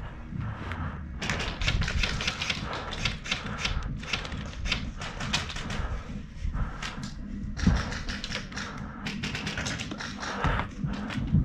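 Airsoft guns firing in rapid bursts: a dense clatter of quick clicks, broken by short pauses.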